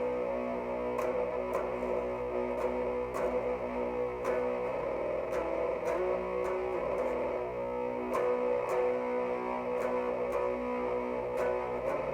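Jackson X Series SCX 3H electric guitar through an Orange Crush Mini 3-watt amp boosted by a Boss ODB-3 overdrive, playing a slow doom metal riff of held notes that change every second or two.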